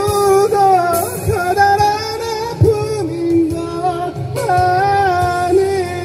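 A man singing a Korean pop song into a microphone over a karaoke backing track, amplified through a loudspeaker, with long held notes that waver in pitch.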